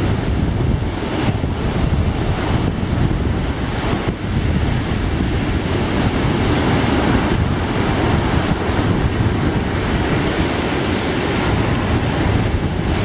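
Ocean surf: waves breaking and washing in a steady rush, with wind buffeting the microphone.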